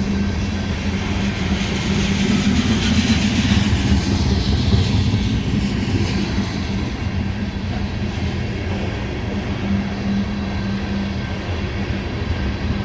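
Freight train of ethanol tank cars rolling past: a steady rumble of wheels on rail with a steady hum underneath and a hiss that swells for a few seconds about two seconds in.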